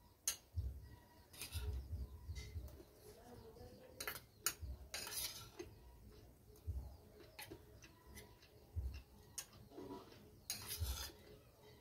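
Steel spoon clinking and scraping against a stainless steel bowl of upma as it is scooped and eaten, in scattered single clicks and short scrapes, with soft low thumps in between.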